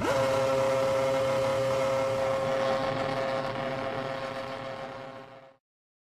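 A Ferrari Formula 1 car's 2.4-litre V8 hits the tyre wall with a sharp crunch, then runs on at one steady high pitch. The injured driver's foot is still on the throttle. The sound fades and cuts off about five and a half seconds in.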